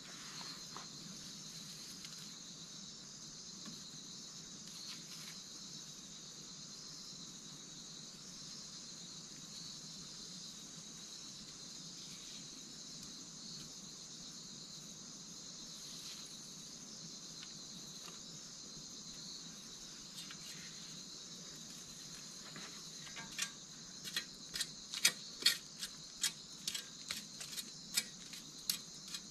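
Steady, shrill insect chorus from the forest. In the last few seconds, a quick series of sharp wooden clicks and knocks as dry sticks are handled and set in place.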